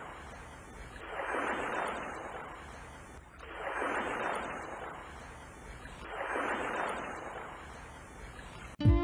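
Rushing noise that swells and fades three times, about every two and a half seconds, rising and falling like waves washing in. Just before the end, violin music starts with a sharp opening note.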